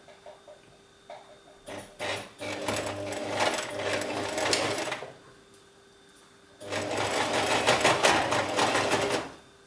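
Singer domestic sewing machine stitching a zigzag seam in jersey fabric. It runs in two spurts of about three seconds each, starting about two seconds in, with a short stop between them.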